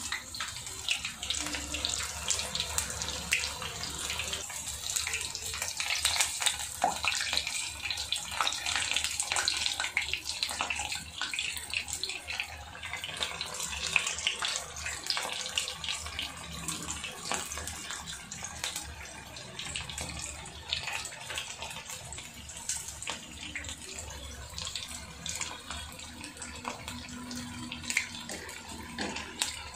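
Battered cauliflower florets deep-frying in hot oil in a steel kadai: a steady crackling sizzle of many tiny pops. It is busiest in the first half and eases off somewhat later as the pieces cook.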